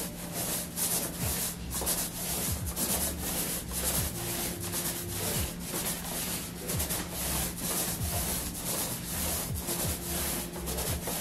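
A 9-inch paint roller on an extension pole rolling paint onto a wall: a rubbing swish with each up-and-down stroke, repeating about every half second.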